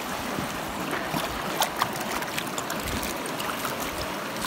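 Shallow river running over stones, with splashes and gurgles as a stainless steel camp cup is dipped in and filled; two sharper splashes come about a second and a half in.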